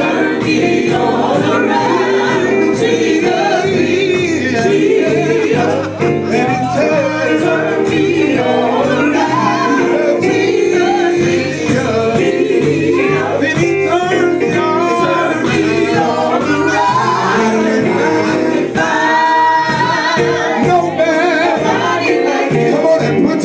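Gospel group singing live through microphones: a male lead voice with female backing singers over steady instrumental accompaniment.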